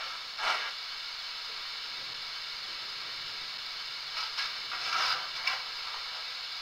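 Hornby 'City of Sheffield' model steam locomotive's DCC sound decoder, heard through its small onboard speaker: a last exhaust chuff about half a second in as the loco comes to a stand, then a steady steam hiss with a few short bursts of hiss around four to five and a half seconds in.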